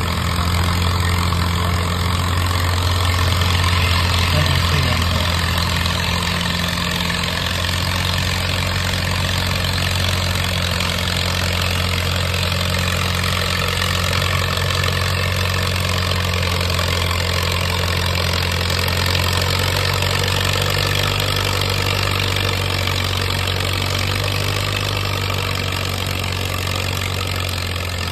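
1936 Allis-Chalmers tractor's four-cylinder engine running at a steady speed under load while it pulls a weight-transfer sled, its note shifting a little about two-thirds of the way through.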